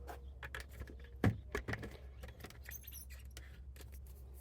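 Handling noises from marking a rubber trim-to-fit cargo mat: a series of light taps and clicks from hands and a marker on the mat, the loudest a little over a second in.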